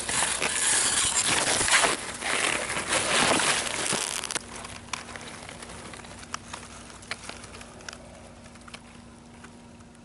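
Handling noise: close rustling and scraping of grass and fabric against the microphone as it is moved through tall grass. It is set down in the grass about four seconds in, leaving scattered faint ticks and a low steady hum.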